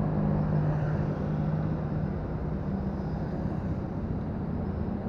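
Steady motor vehicle engine noise with a low hum that fades about three seconds in, over continuous road noise.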